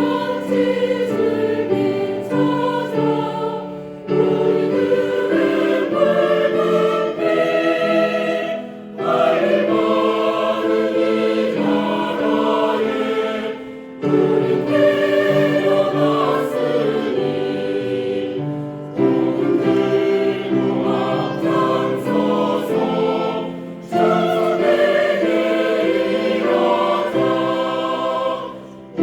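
Church choir singing a hymn in several parts with accompaniment, in phrases separated by short breaths about every five seconds.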